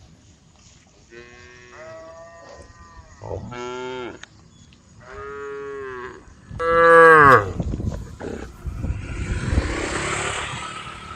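Cows mooing in turn: about five separate calls of different pitch, faint at first, with the loudest call about seven seconds in. A rushing noise follows for the last few seconds.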